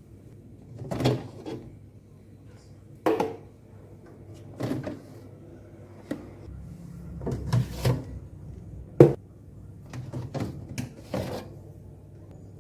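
Scattered knocks and clatter of refrigerator drawers, shelves and containers being handled, opened and set down, about seven irregular bumps with the sharpest one about nine seconds in.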